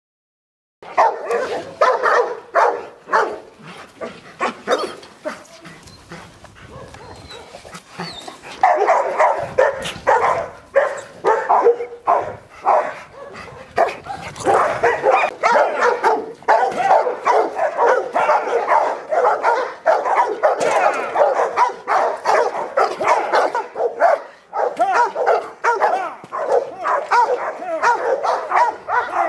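Dog barking hard and repeatedly, worked up in bite training. The barks start about a second in, thin out for a few seconds and then come thick and fast, almost without a break.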